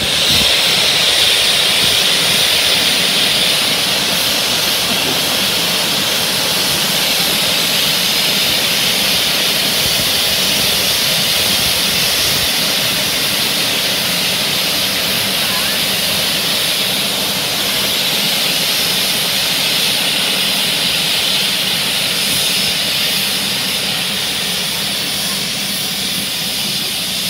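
Steam hissing loudly and steadily from BR Standard Class 4 tank locomotive 80097, starting suddenly and easing a little near the end: the standing engine blowing off steam.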